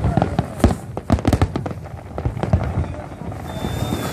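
Fireworks display: rapid, irregular bangs and crackling of aerial shells bursting, with a thin whistle of a rising shell near the end.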